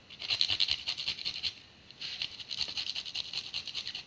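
A garlic clove rubbed quickly back and forth on a flat stainless-steel hand grater: a rapid rasping scrape in two runs with a short pause between them.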